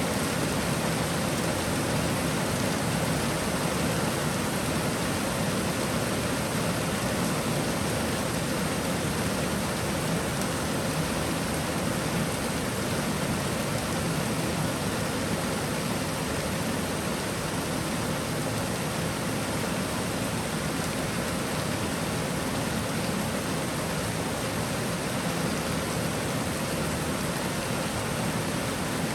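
Steady, dense rain shower falling, an even hiss of rainfall.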